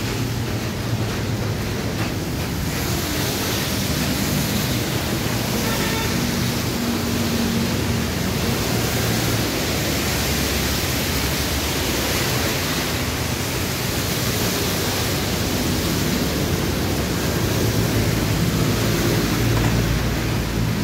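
Steady hiss of falling rain with the low rumble of road traffic underneath.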